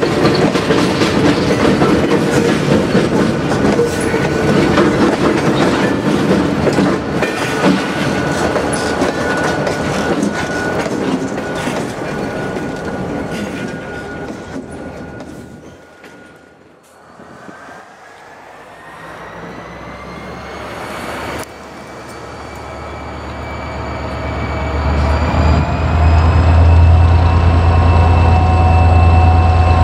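Freight cars roll past with wheels clattering over the rail joints and a thin wheel squeal, fading away as the end of the train goes by. Then a CSX diesel locomotive approaches at the head of a freight train: a rising whine, and a deep engine rumble that grows steadily louder.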